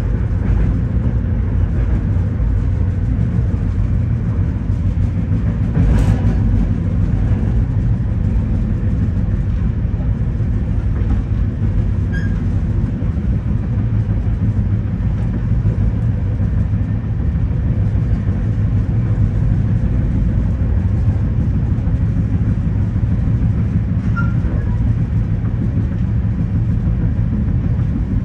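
Steady low running noise of a moving passenger train, heard from inside a sleeping car of VIA Rail's Canadian, with a single sharp knock about six seconds in.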